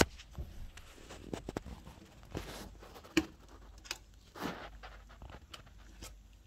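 Hand-handling noises while adhesive tape is repositioned on an opened TV panel: scattered light clicks and taps, the sharpest at the very start and about three seconds in, with a few short rustles.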